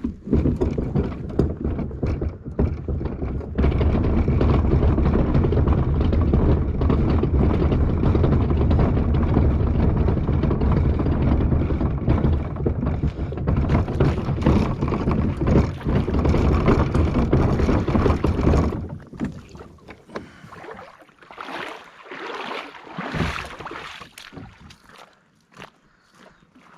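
A Lifetime Manta angling kayak rolled along on its wheels, giving a loud, steady rumble that stops abruptly about 19 seconds in. After that come quieter scattered knocks and scrapes.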